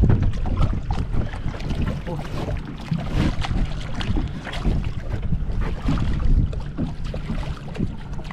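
Wind buffeting the microphone on an open boat at sea, with water slapping and splashing against the hull.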